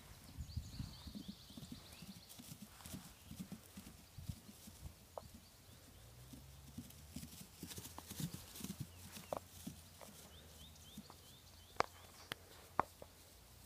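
A young foal's hooves thudding softly and irregularly on grass as it trots and canters, with a few sharp clicks near the end.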